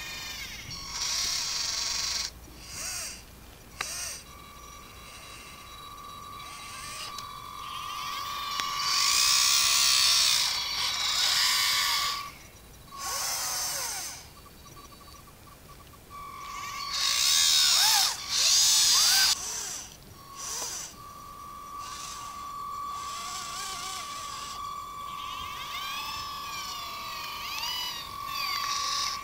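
Radio-controlled scale-model Hanomag HC 260 excavator working: its small electric motors whine in bursts that rise and fall in pitch as the boom, arm and tracks move. Under them runs a steady high hum that drops out and comes back a few times.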